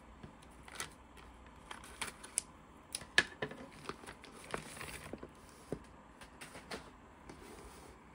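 Plastic poly mailer bag crinkling and rustling as hands pull it open and work a box out of it, with many short sharp crackles of the plastic.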